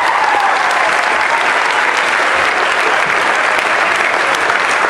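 Crowd applauding steadily, a dense continuous clapping.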